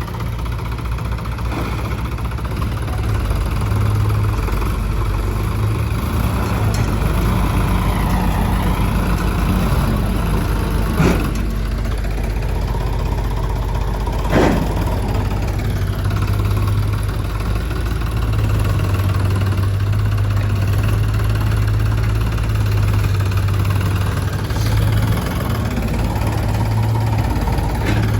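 Heavy diesel machinery engine running steadily, its drone rising and falling a little. Two sharp knocks come about eleven seconds in and again some three seconds later.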